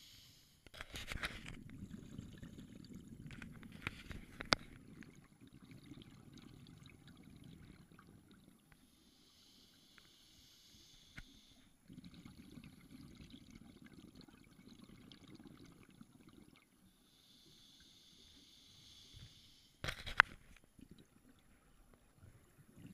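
Underwater scuba breathing through a demand regulator: a hiss on each inhale, then a low rumble of exhaust bubbles for several seconds on each exhale, repeating about twice. A few sharp clicks or knocks come through too, near the start, about four seconds in and near the end.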